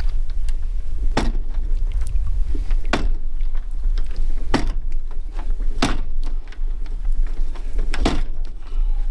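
Five sharp knocks spaced about a second and a half apart, over a steady low rumble.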